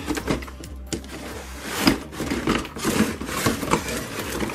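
Cardboard box packaging being pulled and slid off a plastic toy playset: irregular scraping and rustling of cardboard with clattering knocks of plastic.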